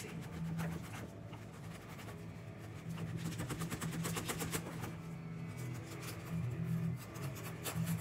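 A wooden dowel being pushed and twisted down into sand and rocks inside a plastic bottle: scraping, busiest around the middle, over guitar playing in the background.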